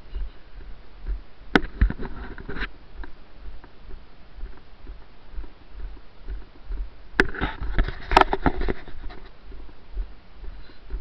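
Footsteps on wet grass, heard as irregular dull thuds through a body-worn camera, with two spells of rustling and clicking handling noise close to the microphone, about two seconds in and again from about seven to nine seconds in.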